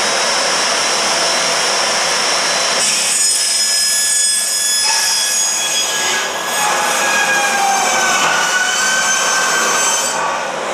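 RIDGID chop saw running and cutting through a sheet-metal hydronic baseboard enclosure with the louver left in place: a steady motor whine with the rasp of the blade in the metal, the tone changing about three seconds in as the blade bites deeper.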